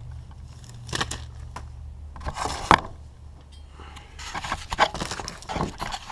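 Metal tools and engine parts being handled: a series of clinks, knocks and scrapes over a faint steady low hum.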